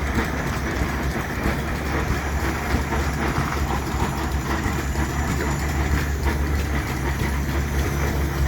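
An engine running steadily with a low hum, at an even level throughout.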